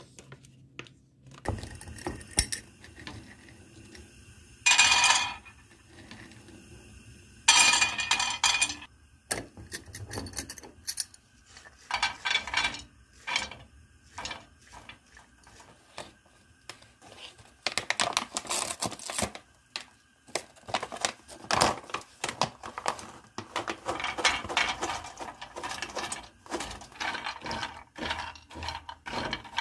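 Whole and chopped nuts (walnuts, almonds, cashews) are tipped into a dry frying pan and stirred with a wooden spatula, rattling and clattering irregularly against the pan. The clattering grows dense near the end. Two louder, noisy bursts come in the first ten seconds.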